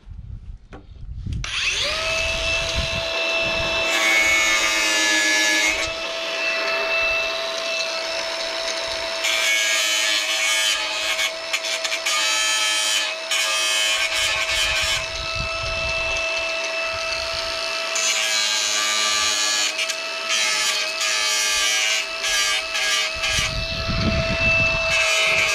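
A power tool's electric motor starts about a second and a half in and runs at a steady high pitch, with repeated stretches of harsher rasping noise as the tool works against the material.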